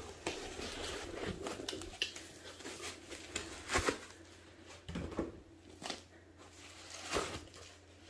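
Cardboard and packing foam rubbing and scraping as a boxed device is lifted out of a shipping carton, in irregular scrapes and knocks, the sharpest about four seconds in.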